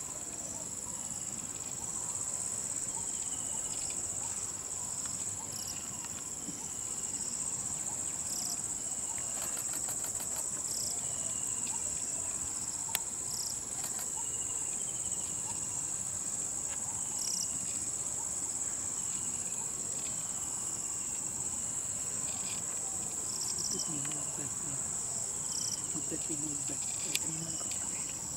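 Steady, high-pitched drone of insects in tropical forest, with a bird repeating a short falling whistle about every second and a half.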